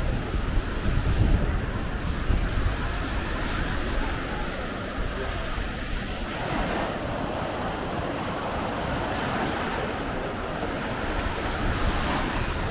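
Small waves breaking and washing up on a sandy shore, a steady wash of surf, with wind buffeting the microphone in the first few seconds.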